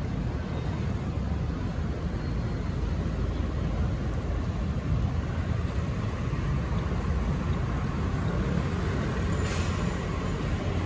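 Steady city street traffic noise, the rumble of scooters and cars passing on the road.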